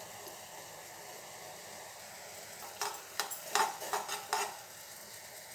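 Black tea boiling in a pan on the stove with a steady bubbling hiss; about three seconds in, a spoon clinks against the pan about six times in quick succession as the tea is stirred.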